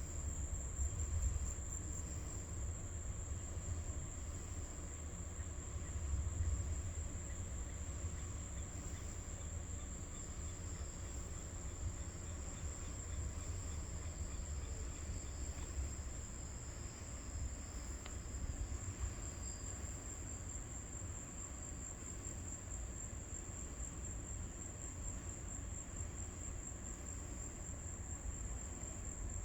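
Steady high-pitched chorus of crickets, one unbroken shrill tone, over a low rumble that is a little stronger in the first few seconds.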